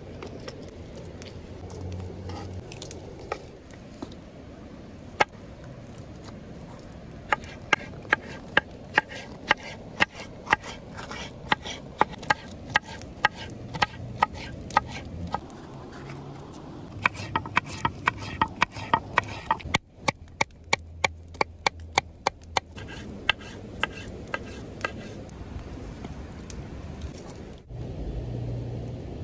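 Kitchen knife chopping a red bell pepper on a thick wooden board: sharp knocks of the blade on the wood, about two a second, in runs with short pauses, over a steady low background noise.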